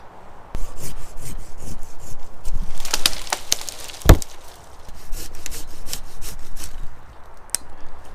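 Hand pruning saw cutting through a branch with quick back-and-forth strokes. There is one much louder knock with a deep thud just after four seconds in, then more strokes.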